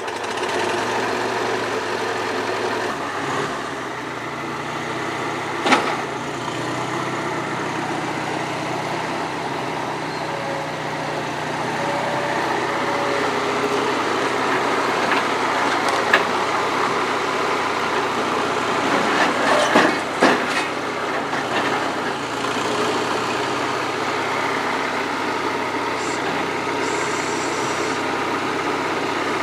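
Wisconsin four-cylinder gasoline engine of a New Holland L425 skid steer running steadily just after starting. A few short knocks or clanks sound over it, about 6 and 16 seconds in, and a small cluster around 20 seconds.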